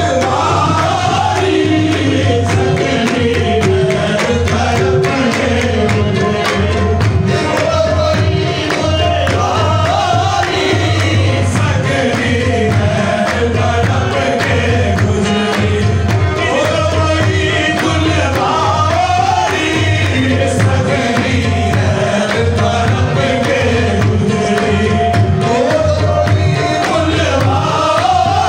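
Qawwali: a male lead voice and chorus singing over rhythmic hand claps and drumming, with a steady held instrumental tone underneath.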